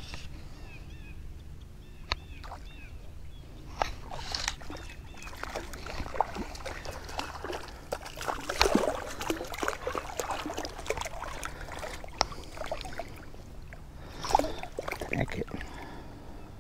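A hooked trout thrashing and splashing at the surface as it is played in and handled, with water sloshing in irregular bursts, heaviest a little past halfway and again near the end.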